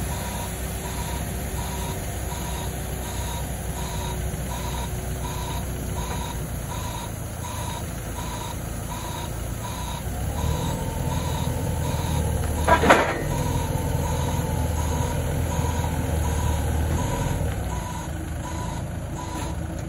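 Hyster H8.0FT heavy forklift running and manoeuvring, its reversing alarm beeping steadily about twice a second. From about halfway the engine works harder for several seconds, with a sharp double clank a little later, then eases off near the end.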